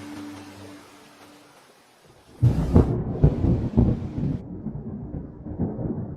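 Waterfall water crashing down, a loud, uneven low rumble that starts suddenly about two and a half seconds in, after background music fades out.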